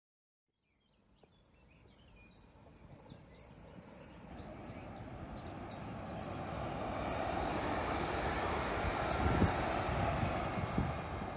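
ÖBB Cityjet electric multiple unit (class 4746, a Siemens Desiro ML) approaching and running past, its running noise swelling steadily to a peak in the last few seconds, with a few low thumps from the wheels. Faint bird chirps are heard early on, before the train noise builds.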